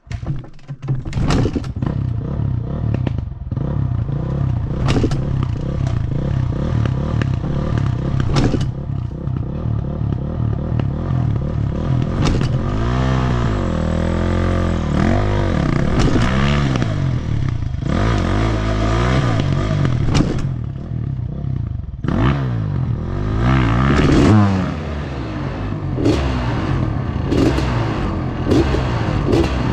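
Honda CR500 single-cylinder two-stroke dirt bike engine running under load on a rocky trail, revving up and down again and again, with frequent clattering knocks from the bike over rocks.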